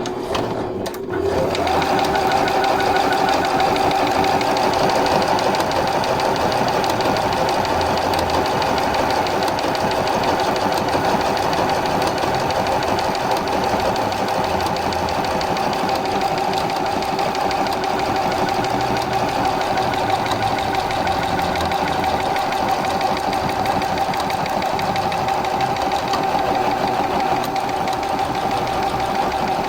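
Juki Allowne computerized embroidery sewing machine stitching cursive lettering. Its motor spins up with a rising whine about a second in, then runs steadily with rapid needle strokes.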